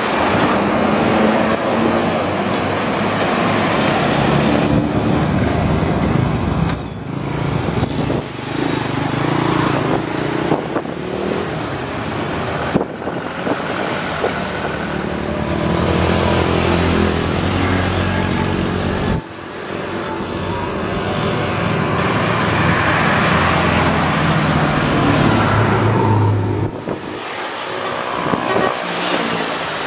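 Road traffic of buses and other heavy vehicles passing close by, engines running, with short lulls between passes about a third and two thirds of the way in and near the end.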